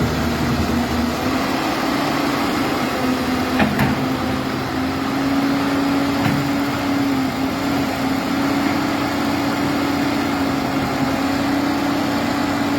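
Caterpillar 200B hydraulic excavator's diesel engine running steadily under work, its hum shifting slightly in pitch. A couple of short knocks come about three and a half seconds in.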